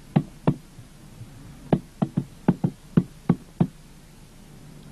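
A series of sharp knocks in an uneven rhythm: two strikes, a pause of over a second, then about nine quicker strikes that stop shortly before the end.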